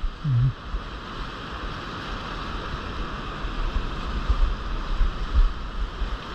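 Whitewater rushing and churning below a low dam spillway, a steady loud roar, with gusts of wind buffeting the microphone.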